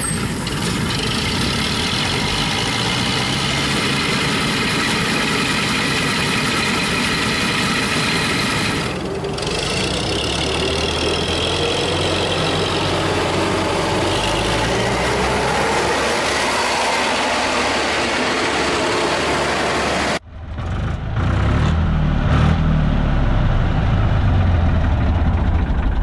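Massey Ferguson 86 combine harvester running, its engine and threshing machinery giving a steady loud noise with high whining tones. About twenty seconds in the sound cuts abruptly to a deeper engine sound.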